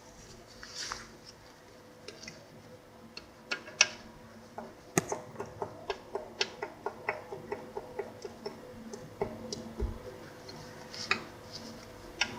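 Metallic knocking from the connecting rod of an SF Moto X8 motorcycle engine, a run of sharp, even clicks about three a second from about five seconds in, with scattered clicks before and after: the sign of a spun connecting rod bearing.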